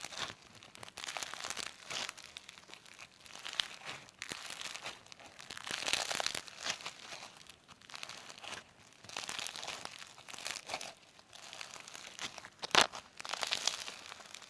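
Slime being squeezed and worked by hand, giving uneven bursts of sticky, crackly noise about once a second, with one sharp click near the end that is the loudest moment.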